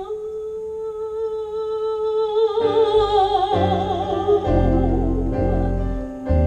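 Live jazz ballad: a female vocalist holds one long steady note that breaks into a wide vibrato partway through, while the upright bass and the band's chords come in beneath her about three seconds in.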